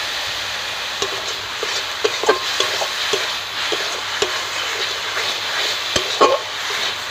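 Onion and garlic paste sizzling in hot oil in a metal kadai. A metal spatula stirs it, scraping and clicking against the pan now and then.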